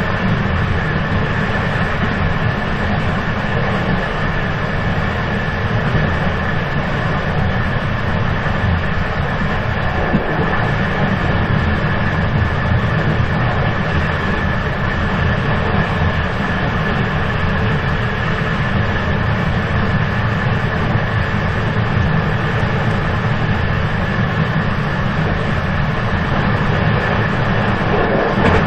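Moving train running steadily: a continuous deep rumble and rushing noise with a steady high tone over it, with no breaks or changes.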